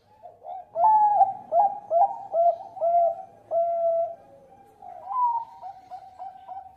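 Zebra dove of the Bangkok song type (perkutut Bangkok) cooing: a run of about six loud, clipped coos, the last one held longer, then softer, quicker coos after a short pause.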